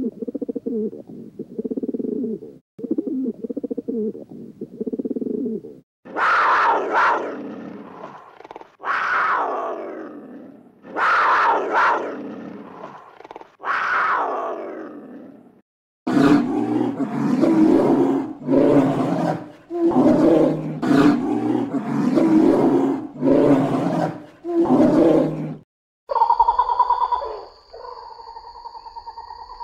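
A sequence of different animal calls cut together: first a run of short, low, repeated calls, then four long calls that fall in pitch, then a fast series of short calls, and near the end a held, steady tone.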